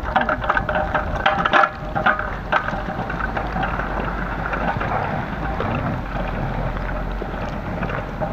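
Two-wheeled handcart carrying a 48-litre metal canister rolling over wet asphalt, with a cluster of clicks and knocks in the first two seconds, then a steady rolling noise over a low rumble of wind on the microphone.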